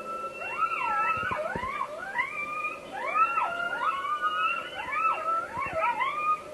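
A pack of coyotes howling and yipping together, many voices overlapping in rising and falling wavering calls. The pack chorus is the kind heard in the evening, which the listeners take for a hungry pack.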